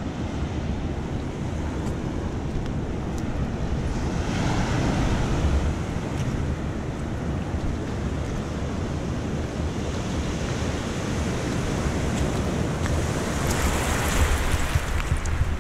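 Sea surf breaking and washing up a beach, a steady wash with two waves swelling into a louder, hissing rush: one about four seconds in and one near the end.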